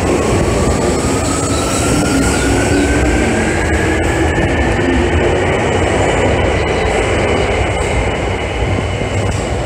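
Electric subway train pulling out of an underground platform: a steady rumble with a motor whine that rises steadily in pitch as the train accelerates away.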